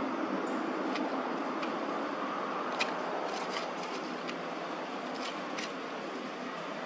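Steady outdoor background rumble with scattered short, sharp crackles of dry leaf litter as a long-tailed macaque rummages and handles things on the ground.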